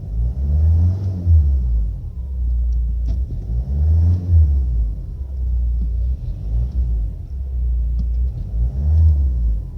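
Ford Mondeo Mk4 2.0 diesel engine running with a heavy low rumble, its revs swelling up and back down three times, with a faint whistle rising and falling in pitch with the revs.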